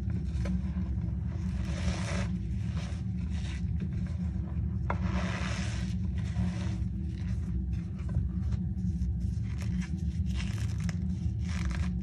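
Reformed cornstarch and gym chalk being squeezed and crumbled by hand: repeated squeaky, crunchy squeezes of the powder, with short crackles as chunks break apart, more of them in the second half. A steady low hum runs underneath.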